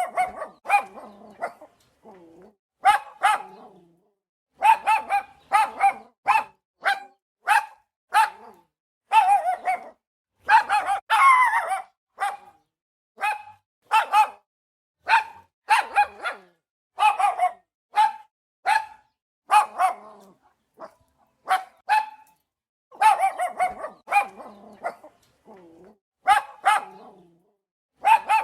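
Dog barking over and over, in runs of quick barks broken by short pauses.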